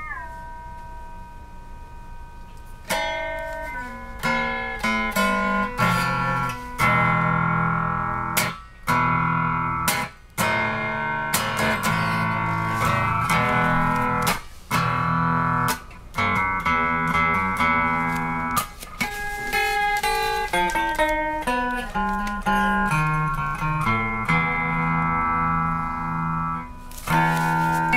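Electric guitar played through Fairfield Circuitry effect pedals: picked notes and chords with sliding pitch, in short phrases broken by brief pauses.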